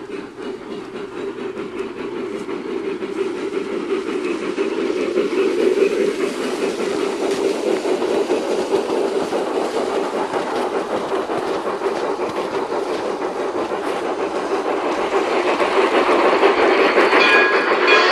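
Model train running along its track, getting steadily louder as it approaches.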